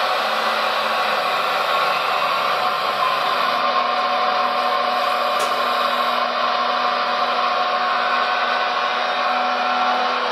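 Electric hydraulic pump of an RC Liebherr 956 excavator model running with a steady whirring whine, its tone shifting slightly about three seconds in.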